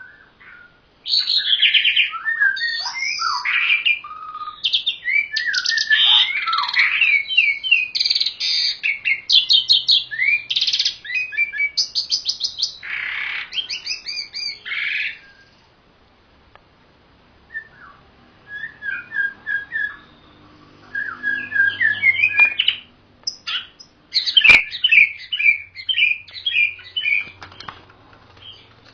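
Caged songbirds, a pied starling (jalak uren) and a white-rumped shama (murai batu), singing long runs of rapid, varied whistles and chattering notes. The song breaks off for a few seconds in the middle, then resumes, with one sharp click near the end.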